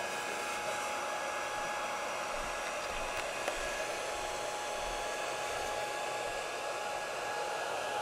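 Small cooling fan running steadily inside a laser projector, blowing over the laser driver's heatsink: an even whirring hiss with a faint steady whine on top.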